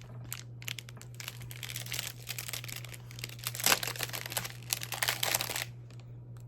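Plastic packaging wrap crinkling and crackling as it is handled and pulled open, with a denser stretch of crinkling about halfway through.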